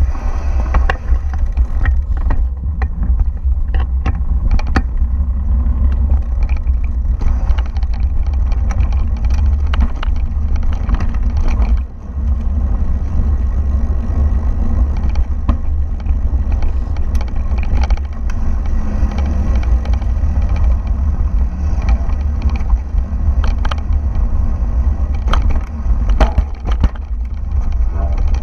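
Mountain bike rolling over a gravel dirt trail, heard from a camera riding on the bike: a steady low wind rumble on the microphone, with tyre crunch and frequent sharp rattles and knocks as the bike goes over bumps.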